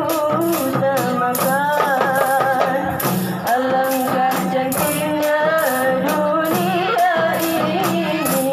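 A nasyid group of women singing a melody, accompanied by rebana frame drums and tambourine jingles keeping a steady beat.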